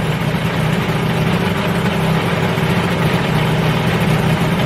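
Engine of a home-built ultralight helicopter running steadily at idle during a ground run-up.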